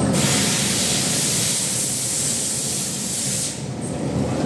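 A loud, steady hiss over a constant low rumble; the hiss stops suddenly about three and a half seconds in.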